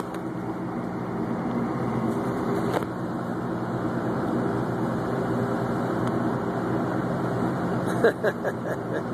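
Tugboat's diesel engine running steadily under way, a low even drone, with a light tow of barges made up alongside.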